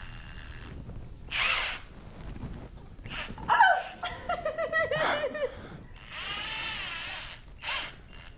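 Power drill whirring in short bursts as it spins a greased metal coil, with a person's shrieks and laughter in between.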